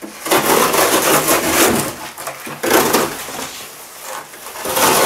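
Extrema Ratio Task C knife sawing through a corrugated cardboard box, with rasping strokes and crackling cardboard. It goes quieter for a moment about three and a half seconds in, then starts again near the end.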